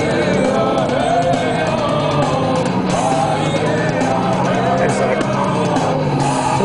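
Rock music with a singing voice, loud and steady, over a low steady drone from the car's engine that drops away near the end.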